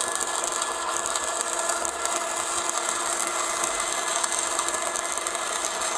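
Stick-welding (SMAW) arc from a 6013 electrode crackling and sizzling steadily while a bead is run.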